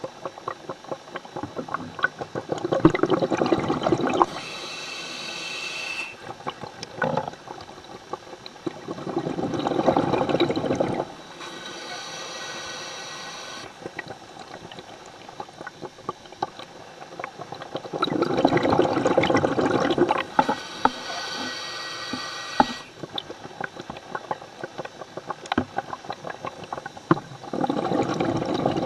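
Scuba diver breathing through a regulator, heard underwater: four slow breaths about nine seconds apart, each a loud bubbling rush of exhaled bubbles, with a thinner hissing inhalation from the demand valve in between.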